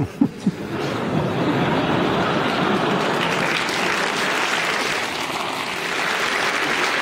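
Audience applauding, building up within the first second and then continuing at a steady level.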